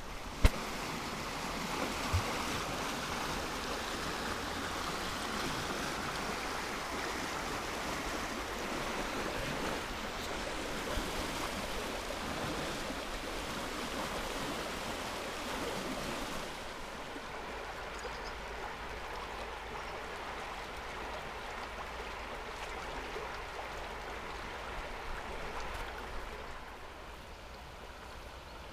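River water flowing in a steady rush, with a sharp click about half a second in. About 16 seconds in the rush changes to a quieter, duller one.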